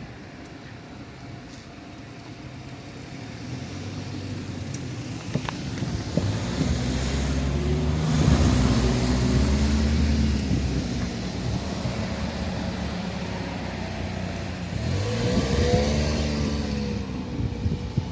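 Road vehicle engines passing: a low, steady engine note grows louder over several seconds to a peak about eight to ten seconds in, and a second vehicle passes near the end with its pitch bending as it goes by.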